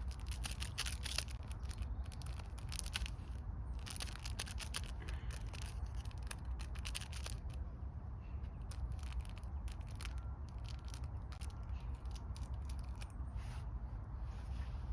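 Camping gas stove burning low under a pot of simmering noodles: a steady low roar with irregular crackling and scraping, busiest in the first half.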